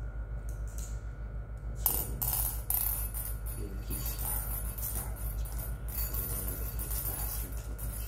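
Jingling, clinking rattle of small hard objects handled in a bowl, starting with a sharp clink about two seconds in and going on in a run of light clinks. A steady low hum lies underneath.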